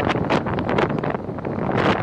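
Wind buffeting the microphone of a moving vehicle, a loud, irregular gusty rush over the road and engine noise.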